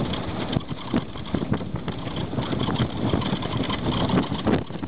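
Rented car running slowly at about 20 km/h on a dirt road: steady engine and tyre rumble with a rough, uneven noise full of small knocks and rattles.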